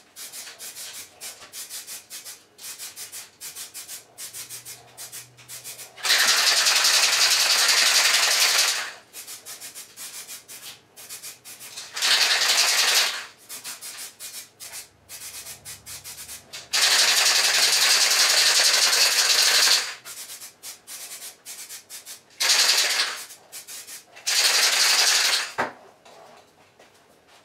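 Aerosol can of weld-through primer: a fast rattling, as of the mixing ball in a shaken can, then five spray bursts of hissing, the longest about three seconds, with more rattling between them. The hissing stops about a second before the end.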